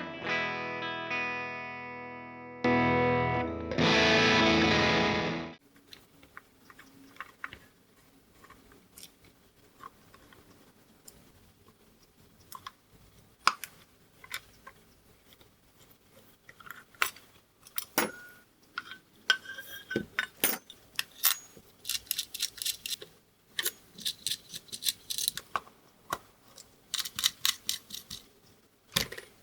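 Electric guitar chords played through a NUX Drive Core overdrive pedal, checking its unreliable footswitch. The later chords are louder and distorted, and they cut off abruptly about five seconds in. After that come scattered small clicks, taps and quick runs of ticking as the pedal is taken apart with hand tools.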